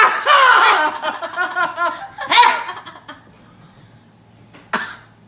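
A rapid run of laughter, about five pulses a second, dying away over the first three seconds. A short sharp burst comes near the end.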